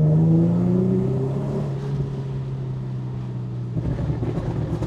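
Infiniti G37's V6 with aftermarket headers and exhaust, running under way: the engine note climbs briefly at the start, then settles into a steady drone. About four seconds in it turns rough and uneven, then falls away.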